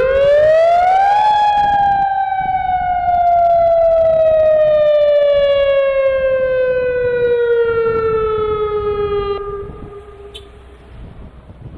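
Civil defence warning siren sounding the alert for a simulated earthquake. Its pitch rises quickly for about a second, then falls slowly over about eight seconds before dying away.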